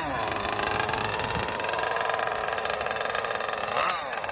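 Small two-stroke gas RC boat engines running at speed out on the water, a high buzzing drone. Near the end one boat passes close by, with a quick rise and fall in pitch.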